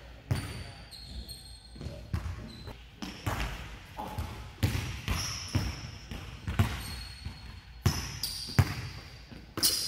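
Basketball bouncing on a wooden gym floor as a player dribbles, in irregular bounces about one or two a second.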